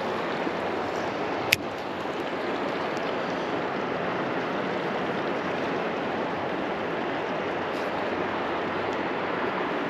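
River water rushing steadily past the rocky bank, with one short sharp click about a second and a half in.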